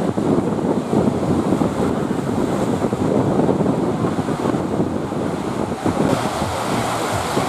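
Sea waves breaking in a steady rough rush, with wind buffeting the microphone.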